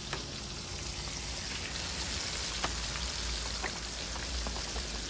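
Floured tilapia pieces deep-frying in hot oil: a steady sizzle with scattered sharp crackles and pops.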